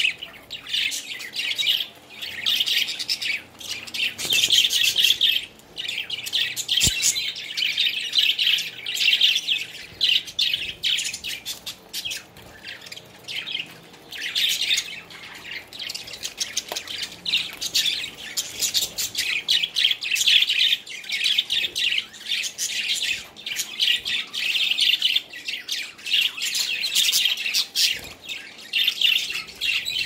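A flock of budgerigars chattering and chirping continuously in quick, overlapping calls, with a few short lulls.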